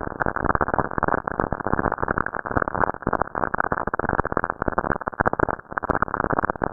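Dense crackling static with a dull, muffled sound: radio emissions from lightning on Saturn, picked up by the Cassini spacecraft and converted to audio.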